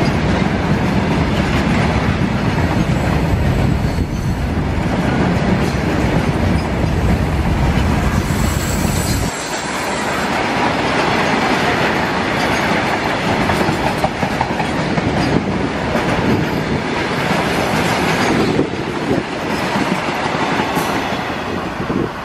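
Loaded RO-RO freight train of flat wagons carrying lorries rolling past close by, a steady clatter of wheels on rail joints. The deep low rumble drops away suddenly about nine seconds in, while the wheel clatter carries on.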